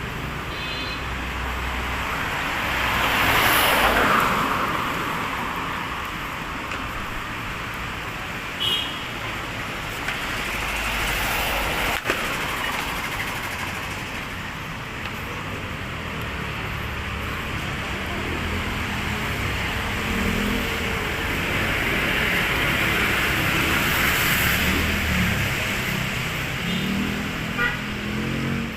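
City street traffic: cars and other vehicles passing close by, the loudest about four seconds in and another swell in the last third, with a few short horn toots.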